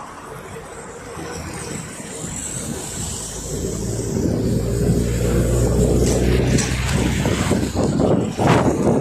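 ZiU-682G trolleybus with its DK-213 traction motor running, with a steady low hum. It grows louder from about four seconds in, and knocks and rattles come in near the end.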